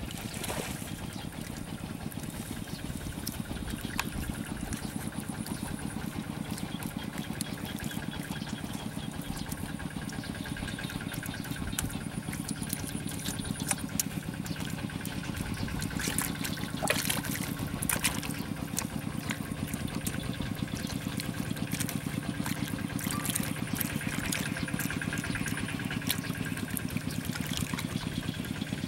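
A steady, low engine drone like a motor idling, with a few sharp wet clicks and slaps from hands packing mud, mostly in the middle.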